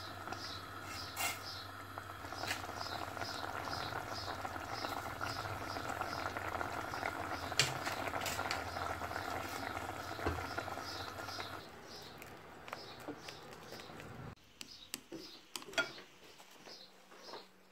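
Misua noodle soup simmering in a saucepan on a gas hob, a steady bubbling hiss with a few sharp knocks of a wooden spoon against the pan. The simmer stops about two thirds of the way through, leaving quiet light clicks of chopsticks and spoon in a bowl, with a faint high chirp repeating about three times a second throughout.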